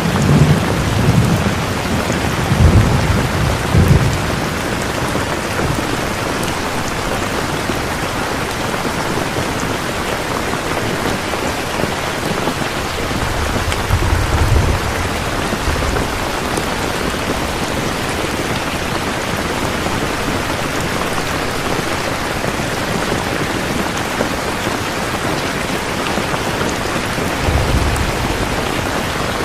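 Steady rain falling on a surface, with low rumbles of thunder at the start, about halfway through and near the end.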